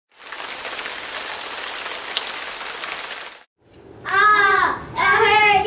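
Steady hiss of heavy rain for about three seconds, cutting off suddenly. About half a second later a child's voice starts, high and drawn-out.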